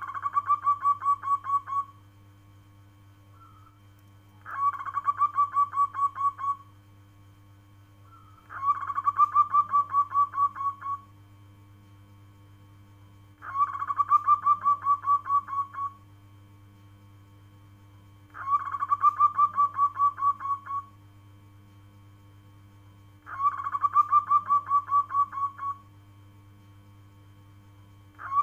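Zebra dove (perkutut) calling: six phrases about five seconds apart, each a short opening note followed by a rapid run of about a dozen staccato coos lasting about two seconds.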